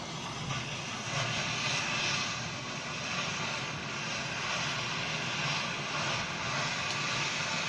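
Steady hiss of gas and well fluid jetting under pressure from an oil well in an uncontrolled kick (blowout).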